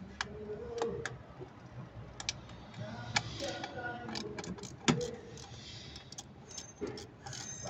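Hand ratchet driver clicking in irregular bursts as it turns a fastener in a car's engine bay, with a few sharper metallic clicks standing out.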